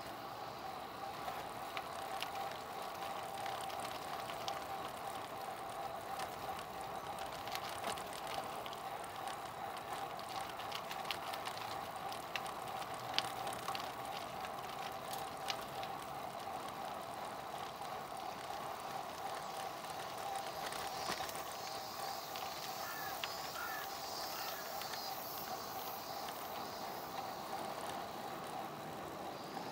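Road bike riding over rough asphalt: steady tyre rolling and wind noise, with many short clicks and rattles as the wheels hit bumps.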